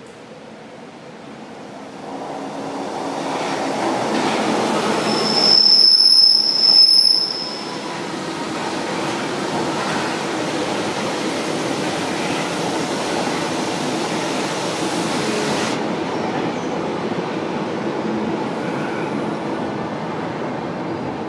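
São Paulo Metro Line 1 trains running through the station: wheel-on-rail running noise that builds over the first few seconds. A high, steady squeal about five seconds in lasts a second and a half. Then comes the steady running noise of a train pulling in alongside the platform.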